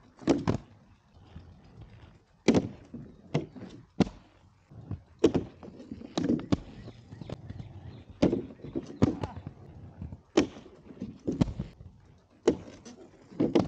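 Inline skates knocking against a wooden ledge as the skater lands on it, grinds and hops off. The sharp knocks come in clusters every two to three seconds.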